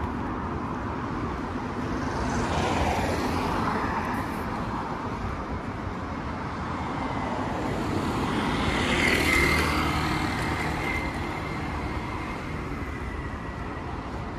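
Road traffic on a busy street: a steady rush of passing cars, swelling twice as vehicles go by close, the nearest and loudest about nine seconds in. A thin high whine and a low engine hum come in with that car and linger for a few seconds.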